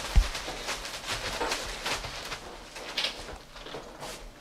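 A group of people moving and handling things in a room: scattered soft knocks and rustles, with one dull thump just after the start.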